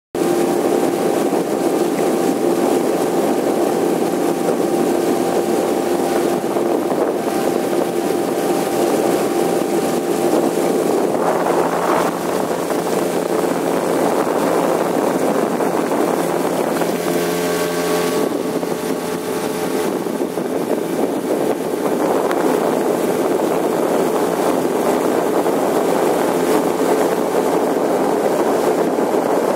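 Small boat's outboard motor running steadily under way. Its tone shifts twice, about a third of the way through and again a little past halfway.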